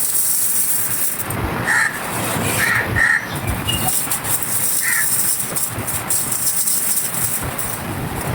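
Dry, crumbly clay texture being crumbled by hand, giving a dense, continuous fine crackle and rustle.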